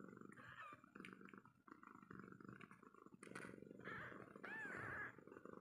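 Mother cat purring steadily over her newborn kittens, with a brief, arched high mew about four and a half seconds in from one of the kittens.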